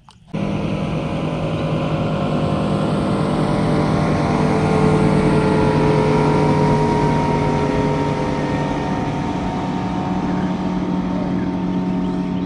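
A boat motor running steadily, with a constant hum that cuts in suddenly just after the start.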